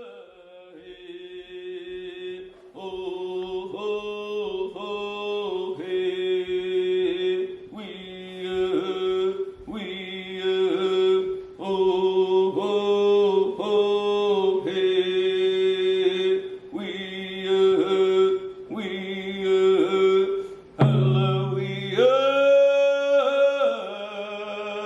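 Voices chanting a song in held notes, in short repeated phrases with brief breaks about every two seconds. A higher, louder phrase comes in near the end.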